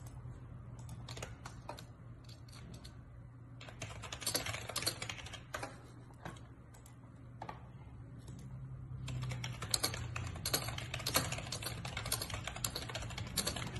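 Typing on a computer keyboard: scattered keystrokes, then two quick runs of rapid clicks, one about four seconds in and a longer one from about nine seconds in, over a steady low hum.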